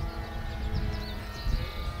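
A model aircraft engine running steadily in the distance, with a few bird chirps in the first second over a low rumble.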